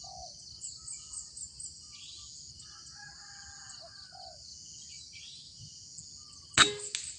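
An air rifle fires a single sharp shot about six and a half seconds in, followed by a smaller click. Under it runs a steady high insect buzz with scattered bird chirps.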